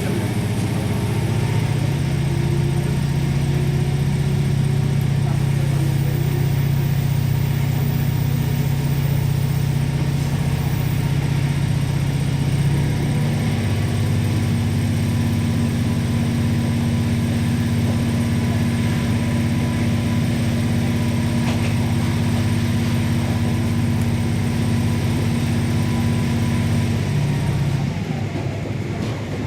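A diesel railcar's engine running steadily under power, heard from inside the passenger car. Its note shifts lower about halfway through, and near the end the engine drops off.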